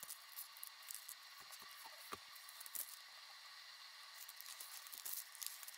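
Faint crinkling and crackling of double-sided tape being handled: its plastic backing liner peeled off and crumpled in the hand. Scattered small ticks, with a soft rustle growing near the end.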